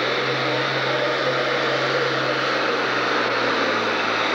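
Farm stock pulling tractor's diesel engine running flat out under full load as it drags a weight-transfer sled. The sound is a loud, steady engine note whose pitch dips slightly near the end.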